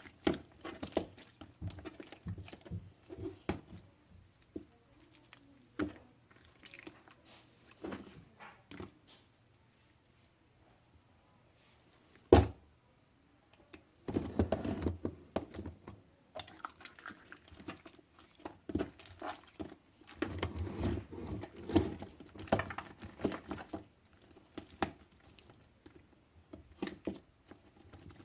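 Slime being squeezed, stretched and pressed by hand, making irregular wet clicks and small popping crackles. The crackling comes in two denser spells in the second half, and there is one sharp, loud click just before the first of them.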